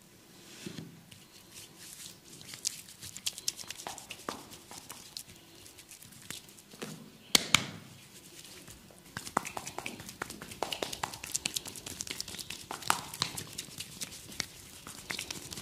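Close-miked hands-on massage: hands rubbing and tapping on skin and hair, with a scatter of small irregular crackles and clicks and two sharp loud cracks a little past halfway.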